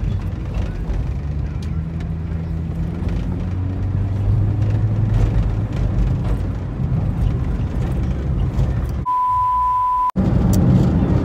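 Steady engine and road noise inside a moving car's cabin. About nine seconds in, it gives way to a single steady high test-tone beep, the TV colour-bars sound, lasting about a second and cutting off abruptly before the car noise returns.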